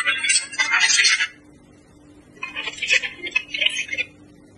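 Gibberlink data-over-sound exchange between AI agents on smartphones: the phones' speakers play rapid high-pitched warbling beeps (ggwave-encoded data). One burst ends about a second in, and a second burst of about a second and a half follows after a short pause.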